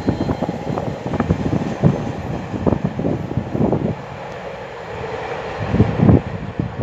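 Container wagons of a freight train rolling away over the rails, the wheels clattering over the rail joints. The clatter thins out and drops in level about four seconds in as the train draws away, with a couple of louder knocks a little before the end.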